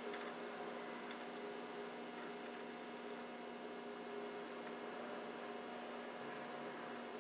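Steady electrical hum of a few even tones over quiet workshop room tone.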